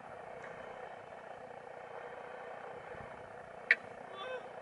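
Steady wind and sea noise on the microphone while a big fish is played from a kayak on a spinning rod, with one sharp click about three and a half seconds in and a brief pitched squeak just after.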